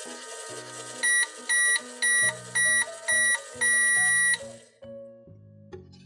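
Just Like Home toy microwave beeping to signal that its cycle is done: five short, high electronic beeps about half a second apart, then one longer beep. Background music plays until just after the last beep.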